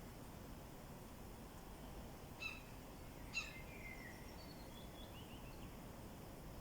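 A bird calling: two short sharp notes about a second apart, the second running into a falling warbled phrase and a few quick descending notes, over a faint steady outdoor hiss.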